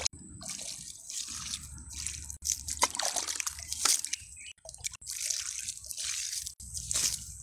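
Water poured from a plastic dipper onto loose, dry garden soil, splashing and soaking in, in several separate pours, with the dipper scooped through a basin of water.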